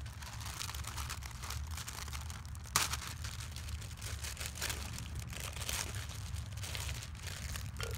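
Clear plastic flower wrapping crinkling and crackling as a bouquet is handled and unwrapped, with one sharp, louder crackle about three seconds in, over a steady low rumble.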